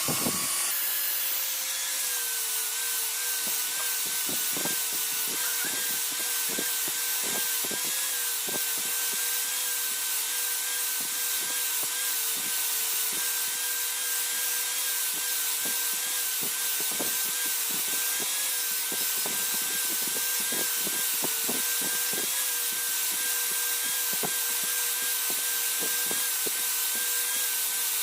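Electric power tool running steadily under load, its motor giving a constant whine that dips slightly as it is pressed into the work. Grinding hiss and irregular small knocks come from the material being worked.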